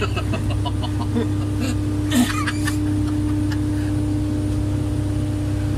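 Crane's diesel engine running steadily, a low drone with a constant hum over it, heard from inside the cab.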